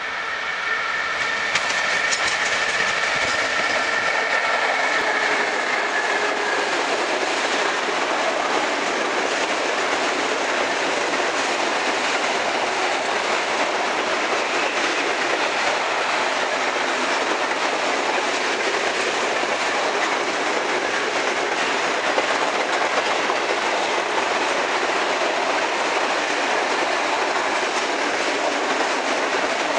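Freight train of Eaos open coal wagons rolling past: steady rumble and clatter of wheels on the rails. A high whine falls slightly in pitch and fades out over the first six seconds or so.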